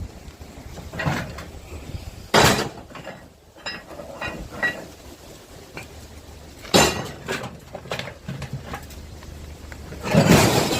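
Scrap metal clanking and clattering as pieces are handled, with two sharp clanks about two and seven seconds in and a louder stretch of rattling near the end.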